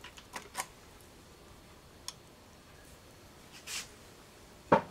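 Quiet workshop with a few light clicks from a thumb-pump oil can as oil goes onto the lathe spindle threads, then a short hiss and a sharp knock near the end, the loudest sound, from tools being handled.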